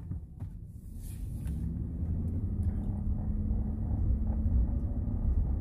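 Low rumble of a GMC Yukon XL's engine and tyres heard inside the cabin, growing louder as the SUV pulls away from a stop.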